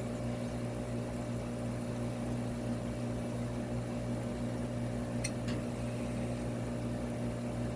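Steady low electrical hum of running aquarium equipment, with two faint clicks about five seconds in.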